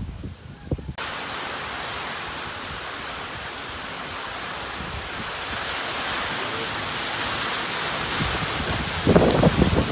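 Hurricane rain and wind: an even, heavy downpour hiss that starts abruptly about a second in, with wind gusts buffeting the microphone at the very start and again near the end.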